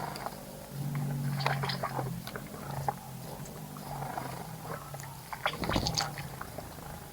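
A bird splashing and fluttering in the water of a bird bath, in two short spells, about a second and a half in and again near the end, over a low steady hum.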